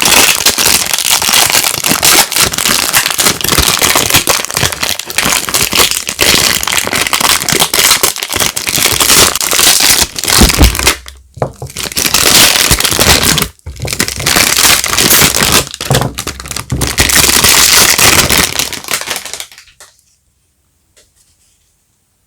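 Soap bar wrapping being crinkled and pulled open by hand: loud dense crackling, broken by two short pauses midway, that stops about twenty seconds in.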